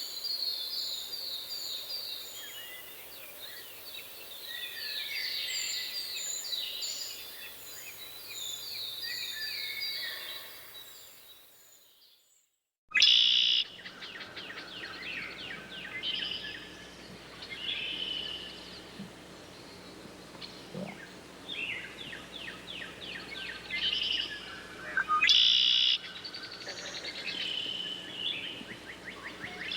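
Several songbirds singing: quick repeated chirps and rapid trills, overlapping one another. Halfway through the birdsong fades out to silence, then another stretch of birdsong starts abruptly.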